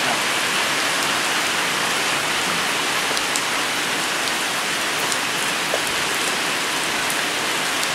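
Steady rain falling: an even hiss with a few scattered sharper drips.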